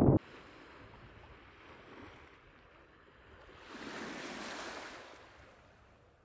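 Shallow seawater washing over shoreline stones: a faint rush of a small wave that swells about four seconds in and then fades. A burst of low wind rumble on the microphone cuts off suddenly right at the start.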